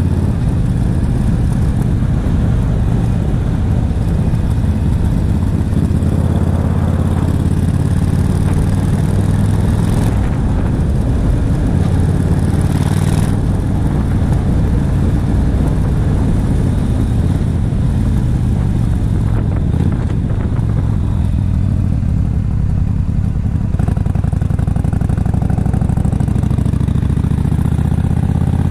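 Yamaha XVS1300CU Stryker's V-twin engine running steadily while the motorcycle is ridden along an open road, with wind noise over the camera.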